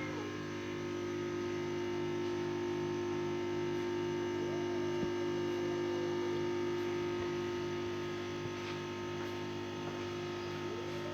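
Steady electrical hum with an evenly pulsing low drone throughout. Twice, about halfway through and again near the end, a faint drawn-out cat yowl rises and falls, the low wailing of cats in a standoff.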